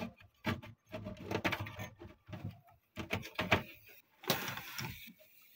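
Handling noise of amplifier wiring being worked by hand: scattered clicks, knocks and light taps of wires and small parts against the metal chassis, with a brief rustling scrape about four seconds in.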